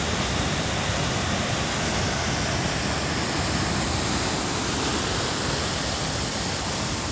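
Waterfall on the Amnicon River, water rushing steadily.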